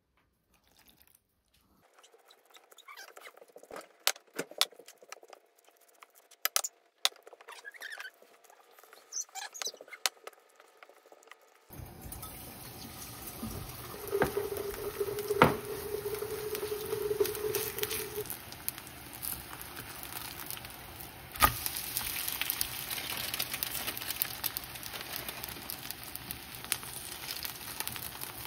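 Kimchi pancake batter being stirred with a spatula in a glass bowl: soft wet squelching and scattered clicks against the glass. About twelve seconds in, this gives way to the batter sizzling in oil in a frying pan, with a few sharp knocks of the spatula on the pan; the sizzle grows louder once the pancake is spread out.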